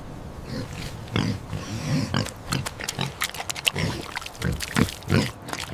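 Pig grunting: a run of short, irregular grunts, several a second.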